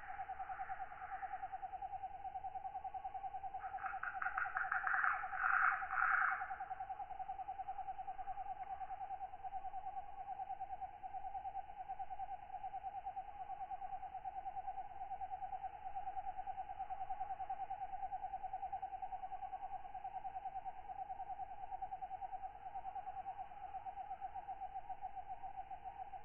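Night insect ambience: a steady, finely pulsing trill runs throughout. About four seconds in, a katydid calls louder with a burst of rapid clicks lasting about two and a half seconds, and a fainter call comes at the very start.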